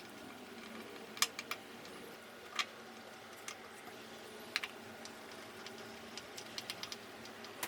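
A few light, sharp clicks and taps at irregular intervals, with a small cluster near the end, over faint room tone.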